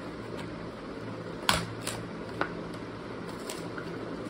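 A toy car's cardboard-and-plastic blister pack being torn open by hand, with a few sharp clicks and snaps from the card and plastic, the loudest about a second and a half in.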